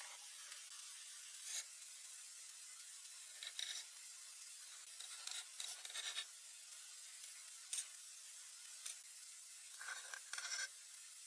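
A handful of short scraping, rubbing sounds at irregular intervals over a steady hiss.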